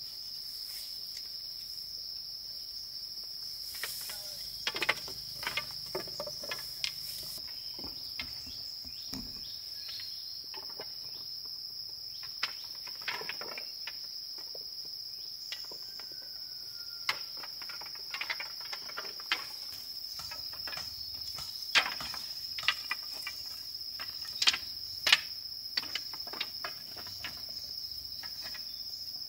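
Steady high insect chorus, one unbroken drone, with irregular sharp clicks and knocks over it that come in clusters about a sixth and three-quarters of the way in.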